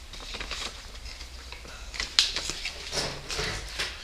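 Paper letters rustling and being handled, with several short taps and clicks; the sharpest click comes about two seconds in.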